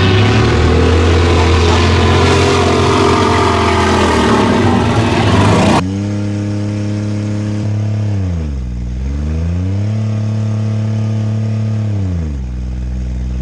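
Six-cylinder enduro race cars running together on a dirt oval. After a cut, a single car's engine is heard from inside the cabin, holding steady revs, then falling off twice as the driver lifts and climbing back in between.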